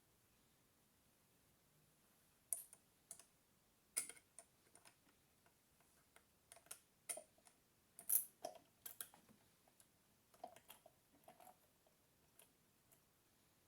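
Faint, irregular metallic clicks and ticks of a lock pick and tension wrench working the pin stack of an APECS 3-star euro cylinder, starting a couple of seconds in.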